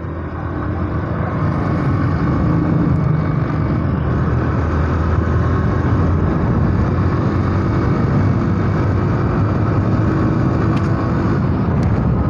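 Yamaha SZ single-cylinder motorcycle engine running while riding at steady speed, under a constant rush of wind and road noise on the bike-mounted microphone. The sound builds over the first second or two, then holds level.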